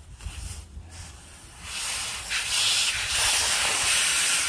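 Air hissing out of a tractor's rear tire through its valve stem as the tire is deflated. The hiss starts about one and a half seconds in and grows louder.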